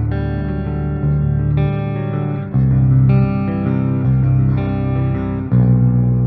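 Ibanez Axion Label RGD71ALMS seven-string electric guitar played clean on its Fluence Modern Ceramic neck pickup in voice 2, through a clean amp with light reverb. Chords are struck about five times and each left to ring, with a heavy low end.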